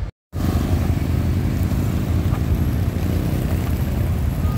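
City street traffic: a steady low rumble of cars and motorcycles running past, cut off by a moment of silence right at the start.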